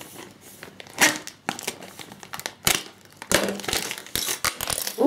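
Clear plastic parts bag crinkling and tearing as it is cut with a knife and pulled open by hand, in a series of sharp rustles and rips.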